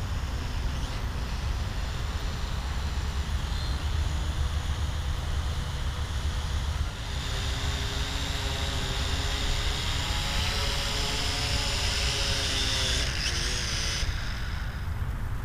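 Vivitar AeroView GPS quadcopter's motors and propellers whining as it comes down on automatic return-to-home. The whine grows in about halfway through, dips in pitch, then cuts off suddenly near the end as the drone lands. Low wind rumble on the microphone throughout.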